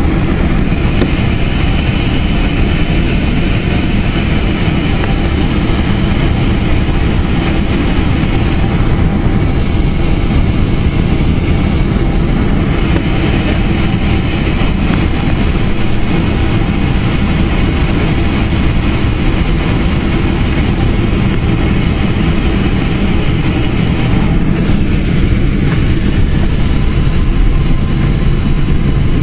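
Boeing 767-400 airliner cabin noise: the jet engines and airflow make a steady, loud rumble with a faint high whine above it, getting a little louder near the end.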